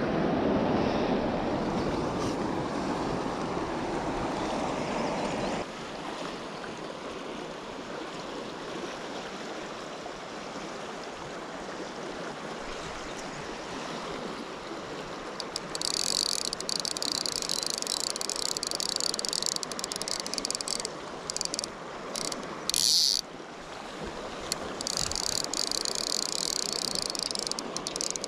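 Rushing river riffle, with water sloshing close by for the first six seconds or so. From about halfway, a fly reel's click-pawl buzzes on and off several times as line is pulled off.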